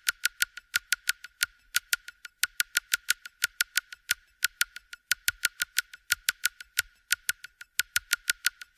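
Rapid, sharp high-pitched clicking, about four or five clicks a second, slightly uneven, like a fast ticking.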